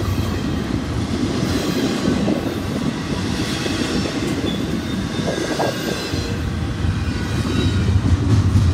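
Double-stack intermodal train's loaded well cars rolling past: a steady rumble and rattle of steel wheels on rail, with a faint high squeal from the wheels.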